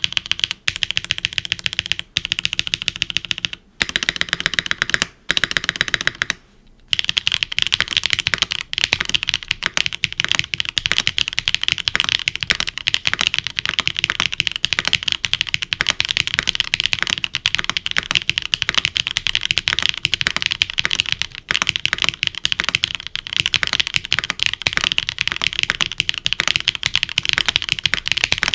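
Typing on a mechanical keyboard fitted with Kailh BCP switches in an aluminium plate, gasket-mounted, with no foam and GMK keycaps. There are a few short runs of keystrokes with brief pauses in the first seven seconds, then fast, continuous typing.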